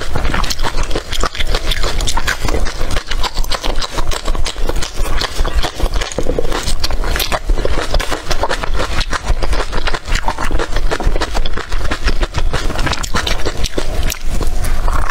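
Close-miked chewing of crisp green chili peppers coated in chili flakes: a dense, continuous run of crunches and mouth clicks.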